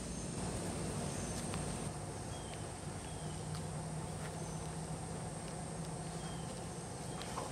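Steady outdoor background: a high, even insect drone over a low hum, with a few short high chirps and faint scattered clicks.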